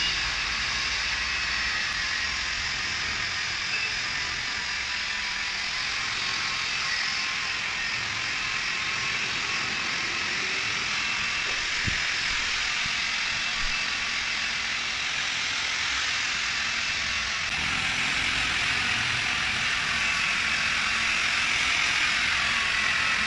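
Corded electric polisher running steadily with a foam pad buffing a motorcycle's painted fuel tank, a continuous motor whine with a hiss of pad on paint, a little louder in the last few seconds.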